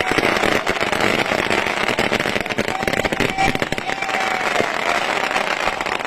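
Fireworks crackling densely and without a break, a rapid stream of small pops.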